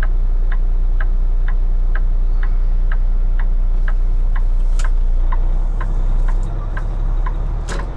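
Turn-signal flasher ticking about twice a second inside a semi-truck cab, over the steady low drone of the truck's diesel engine, which drops in level about six seconds in. Two sharper clicks stand out near the middle and near the end.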